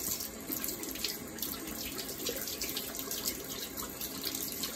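Water running from a tap into a sink, a synthetic shaving brush being soaked under the stream.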